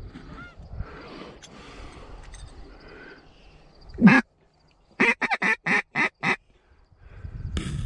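Mallard-style duck quacks: one loud quack about four seconds in, then a quick run of six short quacks, like a hen mallard's descending call. Softer rustling comes before them.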